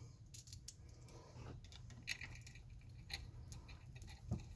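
Faint, scattered light metallic clicks of steel washers and a bolt being fitted by hand onto a puller, over a low steady hum.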